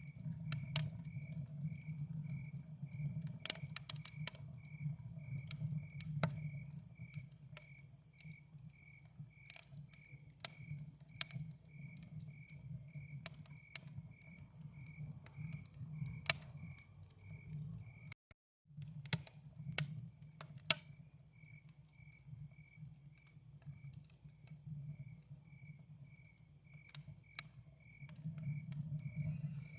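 Campfire crackling with sharp, irregular pops over a cricket chirping steadily about twice a second. The sound drops out to silence for a moment just past the middle.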